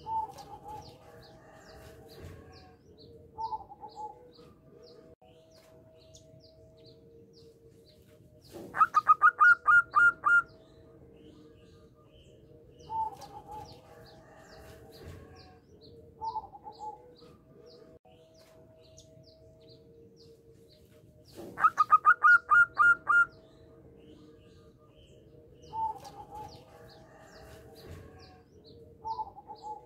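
Zebra dove (perkutut) cooing: a loud rapid run of about eight or nine staccato notes about nine seconds in, repeated about twenty-two seconds in, with shorter, softer coos in between. A faint steady tone and faint high chirps run underneath.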